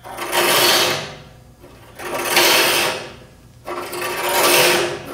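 The 1-inch blade of a Laguna LT14 SE bandsaw, driven by turning the wheel by hand, rasping its teeth into a dust-collection baffle to cut a kerf in it. It comes in three surges of about a second each, one for each push of the wheel.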